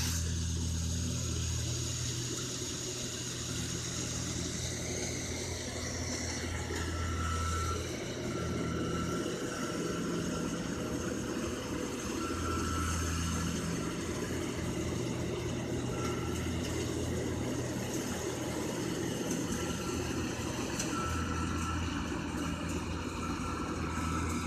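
Rice combine harvester running, its engine a steady drone whose low hum swells and eases every few seconds. From about seven seconds in, short beeps repeat at irregular intervals.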